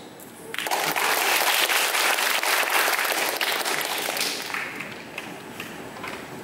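Audience applauding: a dense round of clapping starts about half a second in, then thins out to a few scattered claps over the last couple of seconds.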